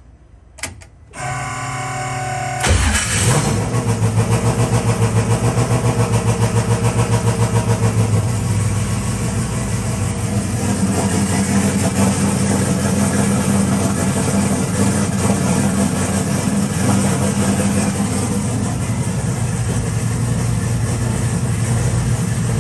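Cold start of a turbocharged V8 race car engine: after a couple of clicks the starter cranks for only about a second and a half before the engine catches. It then runs with a loud, lumpy, pulsing idle for several seconds and settles into a steadier idle.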